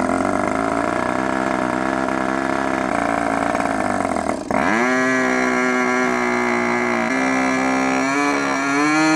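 Raduga R10R 10 cc glow-plug two-stroke model aircraft engine running on a test stand with its propeller, a new engine being run in. About halfway through, its note dips for a moment, then climbs to a higher, steady speed. It steps up again twice toward the end.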